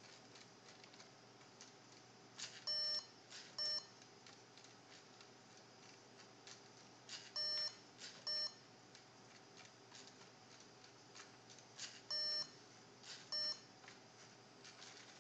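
Three pairs of electronic beeps from the Lego Mindstorms NXT brick's speaker, each a longer beep followed by a shorter one about a second later, the pairs about five seconds apart. Faint clicks come in between.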